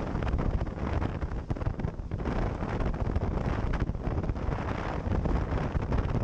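Wind buffeting the microphone and the rush of water and spray as an inflatable boat speeds through the waves.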